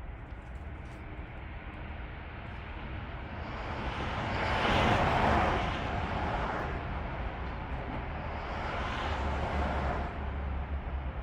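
A vehicle passing by: its noise swells to a peak about five seconds in and fades away, followed by a second, softer pass near the end, over a steady low rumble.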